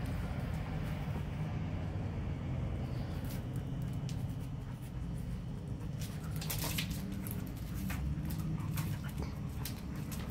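A German shepherd and a Labradoodle play-fighting: scuffling and mouthing noises with short sharp sounds, busiest about six to seven seconds in, over a steady low hum.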